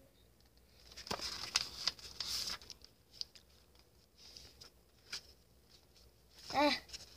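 Pages of a paperback book being turned and rustled, a cluster of rustling about a second in, then scattered light clicks of paper. A brief sound of a child's voice near the end.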